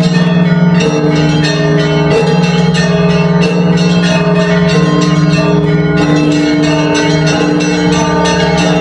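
Russian church bells rung together: rapid strikes of smaller bells over the steady ringing of larger, lower bells, a dense, continuous peal.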